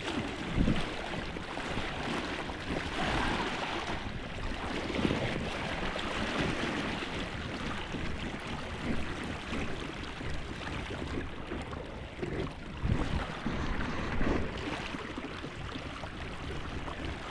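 Steady rush of river water, with wind buffeting the microphone in low rumbling gusts and a few dull thumps.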